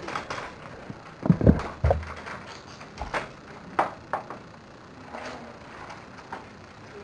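Dull, heavy thumps about a second in, followed by a few short sharp clicks and knocks over a low background hiss.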